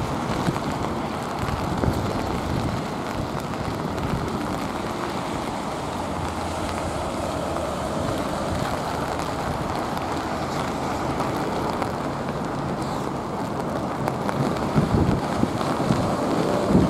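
Airbus A380's jet engines rumbling as it rolls out on a wet runway after landing, mixed with rain and strong gusts of wind buffeting the microphone; the gusts grow stronger near the end.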